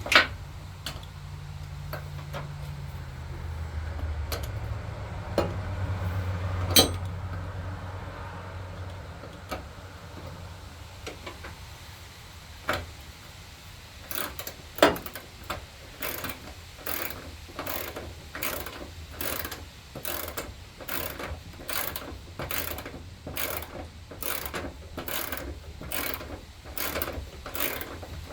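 Ratchet wrench clicking in a steady rhythm, about two clicks a second, as an idler pulley bolt is run down. Before that come a few scattered sharp metal clicks and knocks.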